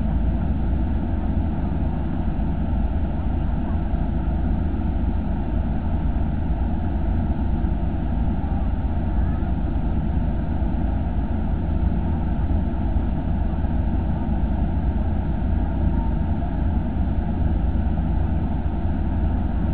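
Kartar 4000 combine harvester running steadily under load while harvesting and unloading grain, its engine and threshing machinery making a loud, even, deep drone.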